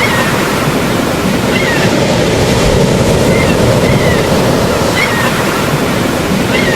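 Steady, even rushing of water, like surf, with faint short high chirps recurring every second or so.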